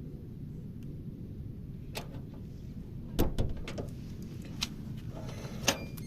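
A handful of sharp knocks and clicks over a steady low rumble, the loudest about three seconds in.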